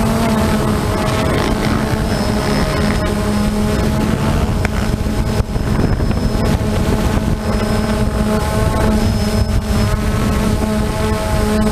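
Steady hum of a multirotor camera drone's propellers, heard from the drone's own camera, with a faint high whine coming and going and wind on the microphone.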